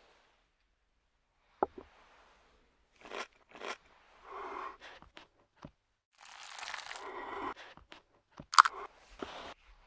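Crunchy cutting and scraping of a knife on a wooden cutting board, in short bursts and longer scrapes, with a sharp knock near the end.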